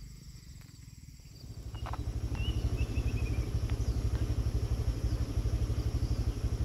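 A small engine running steadily with a fast, even beat, coming in louder about a second and a half in. A bird gives a short descending series of chirps about two and a half seconds in.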